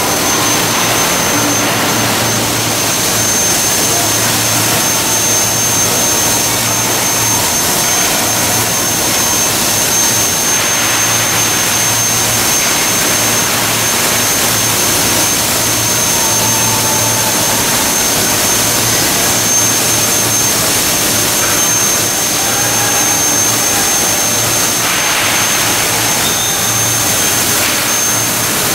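Steady machinery noise on a factory floor, with a constant high-pitched whine and a low hum beneath.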